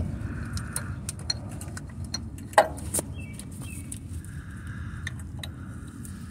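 Irregular metal clicks and clinks of hand tools working on a bolt of the engine torque mount bracket, with one sharper metallic clank and a short ring about two and a half seconds in. A low steady rumble sits underneath.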